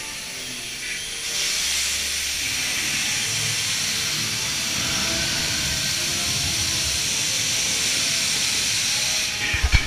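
A dark-ride special effect hissing steadily: it switches on about a second in and cuts off shortly before the end, over a low rumble. A few loud low thumps come right at the end.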